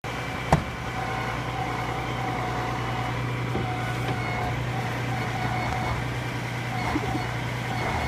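Alvis Striker tracked armoured vehicle's engine idling steadily with a low, even hum, with one sharp knock about half a second in.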